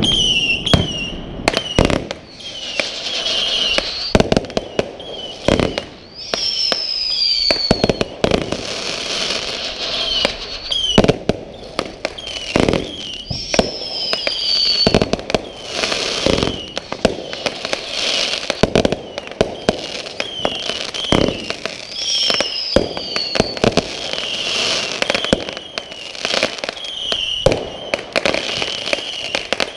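Aerial fireworks going off continuously: a steady run of bangs, pops and crackles, with whistles that fall in pitch about every seven to nine seconds.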